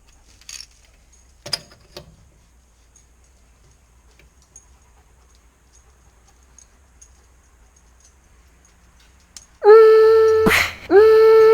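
A few faint clicks and knocks, then near the end an impact wrench run in two loud bursts with a steady high whine, briefly stopping in between, to break the truck's lug nuts loose.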